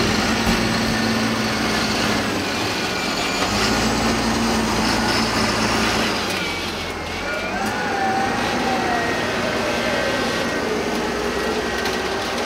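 Claas Axion tractor engine working under load as it pulls a loaded Schuitemaker Rapide 6600 forage wagon up onto a silage clamp. Its pitch rises and then falls away about halfway through.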